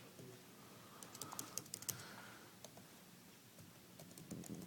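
Faint clicking of computer keys: a quick run of keystrokes about a second in, then a few scattered clicks near the end.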